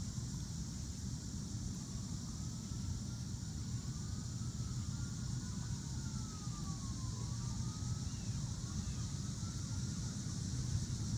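Faint distant siren wailing, its pitch slowly rising and falling, with two wails overlapping in the middle. A steady high hiss and a constant low rumble run underneath.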